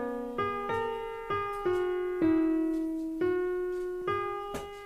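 Background piano music: slow notes and chords struck every half second to a second, each ringing and fading.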